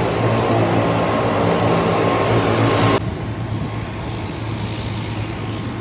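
Aircraft engines running with a steady drone, a deep hum under a faint high whine; the level drops suddenly about three seconds in.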